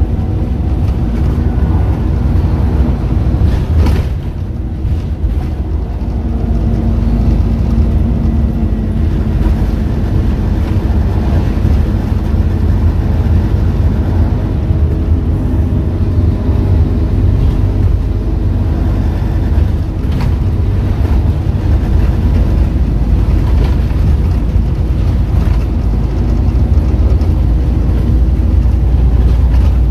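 Cabin sound of a Scania N230UD OmniCity double-decker bus under way: its five-cylinder diesel and ZF automatic gearbox running, with a steady low rumble of engine and road noise. A short knock and a brief drop in level come about four seconds in.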